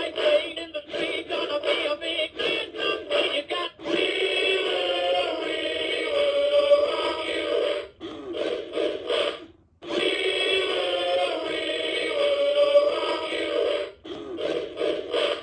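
Singing trout toy playing its song through its small built-in speaker: a synthesized voice singing over backing music, thin with no bass. There is a brief pause about ten seconds in. Its playback pitch is set by a 500 kΩ variable resistor fitted in place of the stock pitch resistor to cure sped-up audio.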